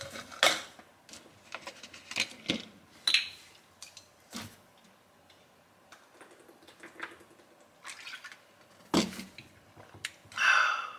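Scattered clicks and light knocks of a plastic pill bottle and its capsules being handled on a counter, a few at a time with quiet gaps between, and a short breathy hiss near the end.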